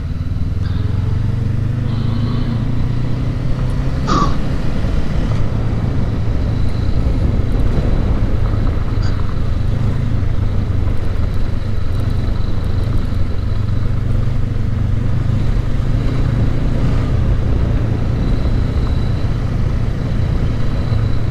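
2019 Honda CB500X's parallel-twin engine running steadily at riding speed on a gravel road, with tyre noise from the loose gravel. A single sharp knock about four seconds in.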